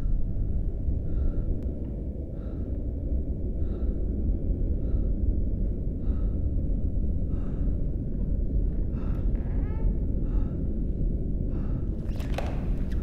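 Heavy, rhythmic breathing, about one breath every second, over a steady low rumble. About ten seconds in there is a short rising squeak, and near the end a louder rustling burst.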